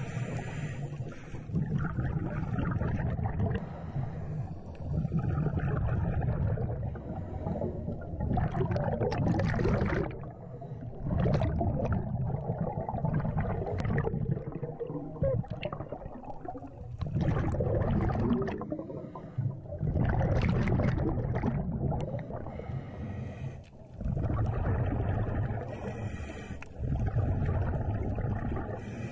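Scuba breathing heard underwater: a diver's regulator hissing on each inhale, alternating with the low rumbling gurgle of exhaled bubbles, over several slow breaths.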